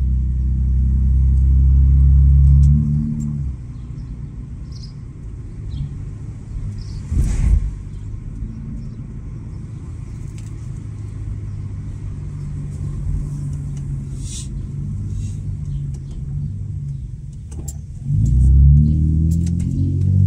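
Muffler-deleted Honda Accord V6 exhaust: loud under throttle for the first few seconds, then a quieter steady drone while cruising, and loud again near the end as the car accelerates. A brief thump about seven seconds in.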